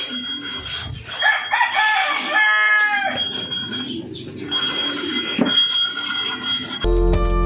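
A rooster crowing once, a call of about two seconds that rises, holds and drops off at the end, over a steady high-pitched tone. Music comes in near the end.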